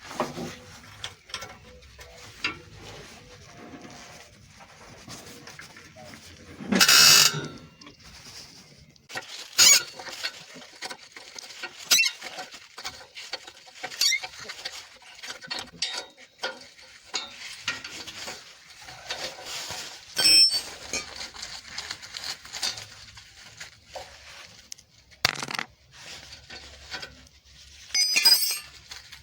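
Metal clinks, clanks and knocks from hand tools and exhaust parts being worked on, at irregular intervals, with one longer, louder rasp about seven seconds in.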